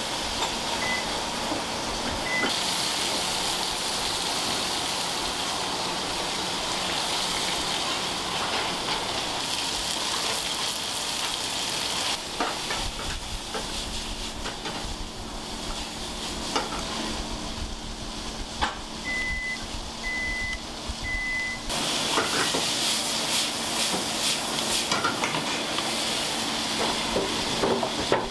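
Karaage (fried chicken) deep-frying in hot oil, a steady sizzling hiss that swells and eases a few times. Short electronic beeps cut through it: two single ones near the start and three in a row about two-thirds of the way through.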